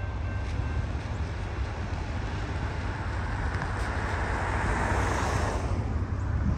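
A distant train horn holds a chord that ends about a second in. Then comes a steady low rumble of wind on the microphone, with a hiss that swells and fades near the end.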